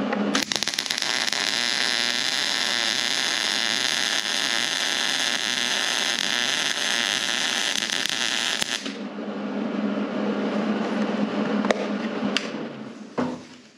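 Hobart Handler 140 MIG welder laying a bead: the arc crackles and hisses steadily for about eight seconds, stuttering for a moment as it strikes, which the welder puts down to the machine's weak wire-feed system, then cuts off. After it stops a steady low hum remains, with a few sharp clicks near the end.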